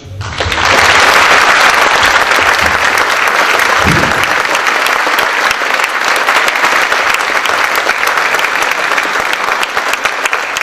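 Audience applauding: dense clapping that swells within the first second and then holds steady.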